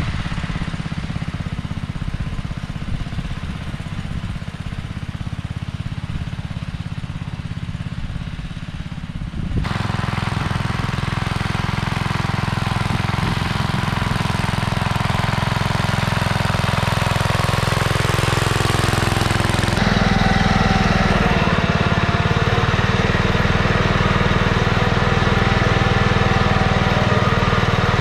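Simplicity 2010 garden tractor's engine running steadily as it pulls a cultivator through the soil between rows of corn. It is fainter at first, then much closer and louder from about ten seconds in, and louder again near twenty seconds in.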